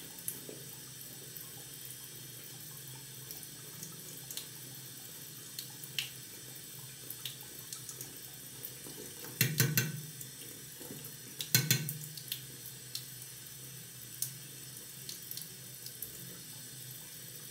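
Bathroom tap running steadily into a sink, with scattered small ticks and two short clusters of louder knocks about ten and twelve seconds in.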